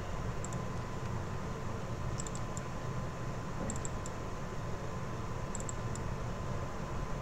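Computer mouse clicking: four small groups of two or three sharp clicks, double-clicks while picking a file to open, over a steady hiss with a faint steady tone.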